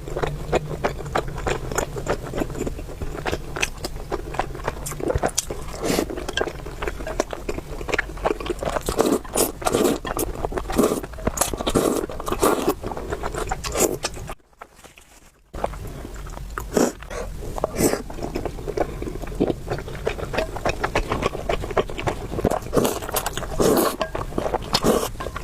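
Close-miked eating: chewing with wet, irregular mouth clicks and smacks. There is a brief drop to silence a little past the middle.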